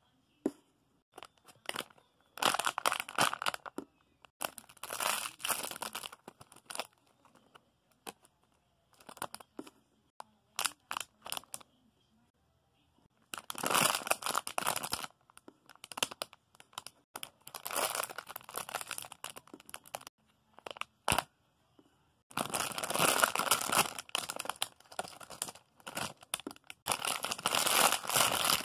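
Plastic packaging crinkling and rustling in irregular bursts as squishies are handled, with short quiet gaps between handfuls.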